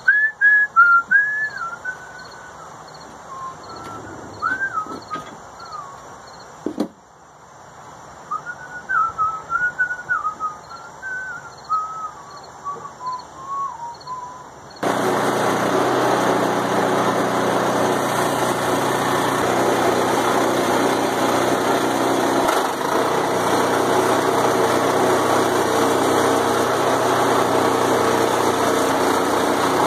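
Whistling, a wandering run of sliding notes, for about fifteen seconds. Then, about halfway through, the sawmill's small gas engine comes in abruptly and runs steadily.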